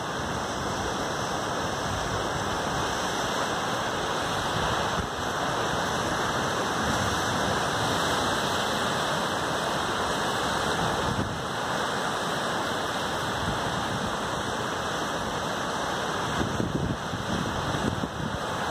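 Sea surf surging and breaking among rocks at the foot of a cliff: a steady rushing wash of water.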